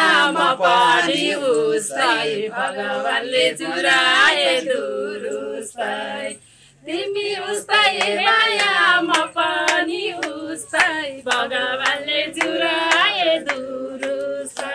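A woman singing a Nepali folk song with a wavering vibrato, to hand clapping; the singing breaks off briefly about six and a half seconds in.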